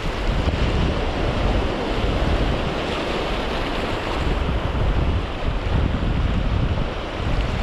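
Sea surf washing over shoreline rocks, with wind buffeting the microphone in a constant low rumble.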